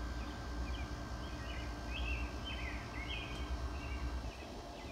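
Outdoor ambience: small birds chirping in short, irregular calls over a steady low rumble.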